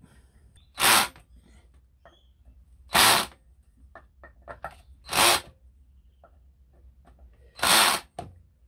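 Cordless drill-driver running in four short bursts about two seconds apart, driving the mounting screws of a brake disc into an electric scooter's hub-motor wheel. Small clicks of screws and bit being set come between the bursts.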